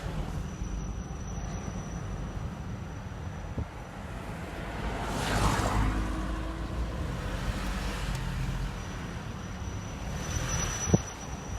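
Car driving, with a steady low road rumble that swells about halfway through and a single sharp knock near the end.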